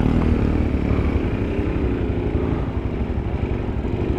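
Suzuki GS 150SE single-cylinder four-stroke motorcycle engine running at low speed as the bike rides along a rough dirt track, its pitch wavering slightly up and down.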